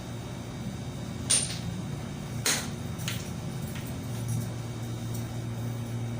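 A few sharp clicks of small metal nail tools during toenail work, the loudest just over a second and about two and a half seconds in, over a steady low hum that grows louder about four seconds in.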